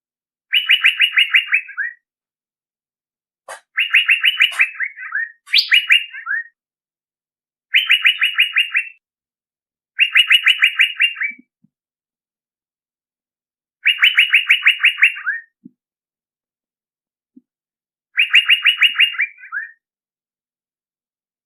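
Recorded lure call of a male Asian fairy-bluebird, repeated seven times. Each phrase is about a second of rapid, evenly spaced notes ending in a couple of lower falling notes, with silent gaps between phrases.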